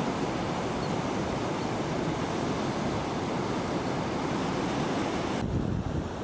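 Ocean surf breaking and washing over low rocks: a steady rush of waves.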